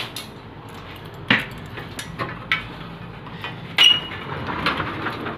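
Several sharp knocks and clicks of objects being handled, the loudest about four seconds in with a short metallic ring, over low rustling.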